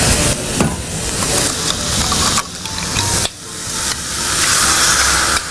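Curry sizzling in a hot kadai as masala paste and water hit the pan, with a stronger hiss in the last couple of seconds as water is poured in.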